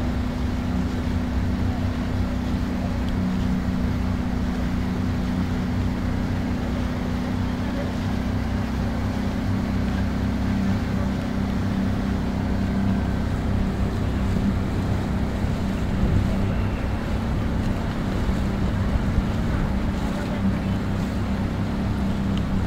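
Outboard motor of a small launch running steadily at low speed, its note shifting slightly about eight seconds in, with wind on the microphone.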